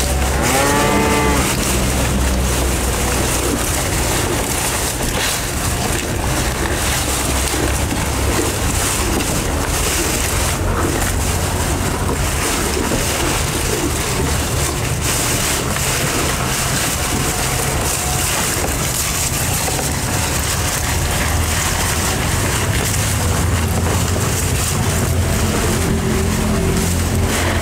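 Bulls feeding on elephant grass at a wooden trough, their chewing and tearing under a steady rushing noise with a low rumble. A short call rises and falls about a second in.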